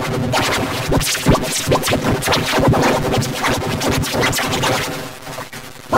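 Heavily effects-processed, garbled audio with choppy, stuttering sounds like record scratching. It drops quieter about five seconds in, then cuts back in loudly at the very end.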